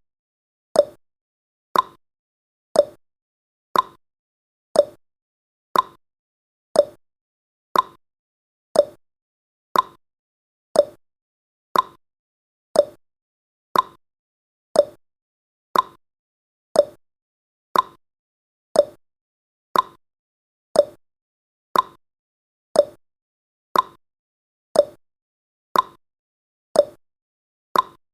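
Clock-ticking sound effect, one sharp tick each second, counting off the seconds of a countdown timer.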